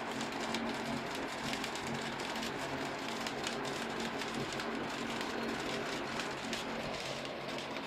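Steady rush of an electric fan on its low speed blowing on a homemade windbelt generator, the VHS-tape belt fluttering rapidly in the airflow, over a steady low hum.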